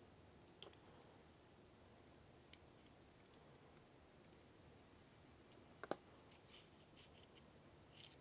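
Faint small metallic clicks of a jeweller's flat screwdriver and steel parts on a Mauser C96 bolt as the firing pin is turned a quarter turn and drawn out. A sharper double click comes about six seconds in, followed by a run of lighter clicks.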